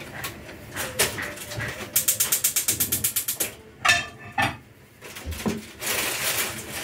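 A rapid, even run of sharp mechanical clicks, about a dozen a second for a second and a half, like a ratchet or a dial being turned, amid kitchen handling noise.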